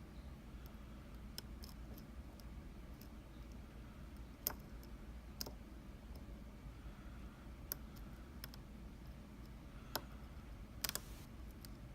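Small, irregular metallic clicks of a pick working the pin stack of an Anzbe HS7 dimple lock, with a few sharper clicks spread through the middle and near the end. A pin is overset, which the picker suspects.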